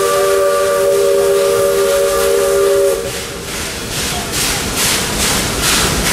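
Steam locomotive's whistle sounding a long, steady chord of several notes that cuts off suddenly about halfway through. After it comes the engine's exhaust chuffing at about two to three beats a second.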